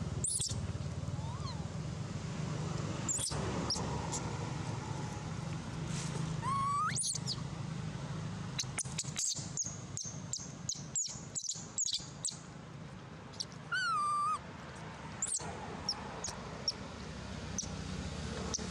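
Infant long-tailed macaque calling: short whimpering coos that slide up and down in pitch, about three clear ones, with higher chirps between. From about 9 to 12 s a run of sharp taps and scuffs as a monkey paws right at the microphone.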